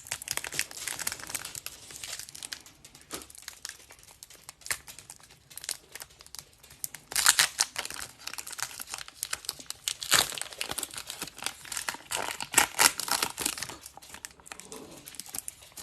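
Hockey card pack being opened: the wrapper crinkles and tears, with cards being handled, in irregular crackling bursts that are busiest about halfway through.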